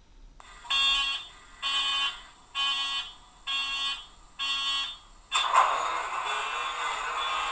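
Hornby TXS model-railway sound decoder playing its Class 66 engine-start sequence through a small sugar-cube speaker. First come five evenly spaced electronic beeps, about one a second. Then, a little over five seconds in, the diesel engine sound starts suddenly and keeps running.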